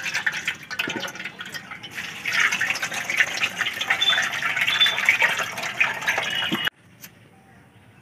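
Water poured from a steel mug, splashing over chopped vegetables in a stainless-steel colander as they are rinsed. It stops abruptly about two-thirds of the way through.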